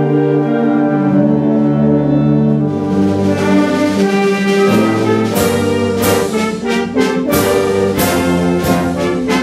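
Concert band playing, with clarinets among the winds. Sustained chords at first, then about three seconds in the music grows brighter and busier, with sharp accented hits on the beat.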